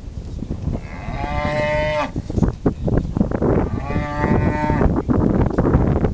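Cattle in a pen bawling: two long, drawn-out moos, one about a second in and another about four seconds in.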